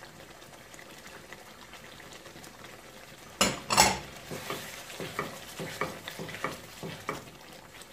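A pot of curry sizzles faintly. About three and a half seconds in, a slotted spatula knocks twice against the pot, then stirs the curry with short scraping strokes over a light sizzle.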